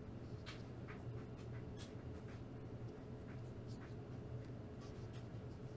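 Instax mini instant-film prints being shuffled and slid across one another in the hands: faint, scattered scratchy rustles, over a steady low hum.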